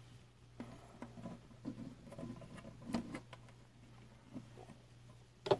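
Faint, scattered clicks and rustles of hands handling a terrarium door and a camera, over a low steady hum.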